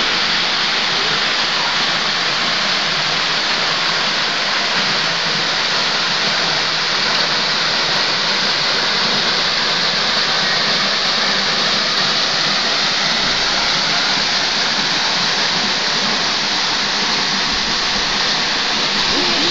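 Waterfall: falling water rushing in a steady, loud hiss.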